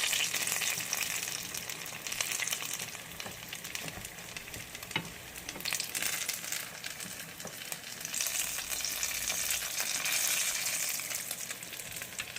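Turon (banana and jackfruit spring rolls) frying in hot oil in a pan: a steady sizzle with scattered crackling pops.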